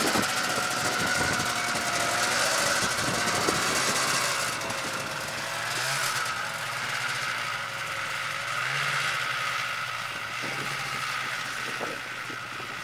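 Snowmobile engine running, its pitch rising and falling with the throttle.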